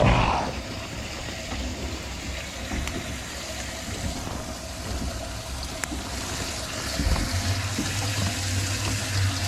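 Water trickling and splashing steadily in a boat's livewell.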